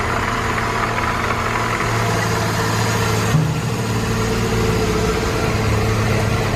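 Heavy truck engine running steadily, a low even drone, with a brief shift in its note about three and a half seconds in.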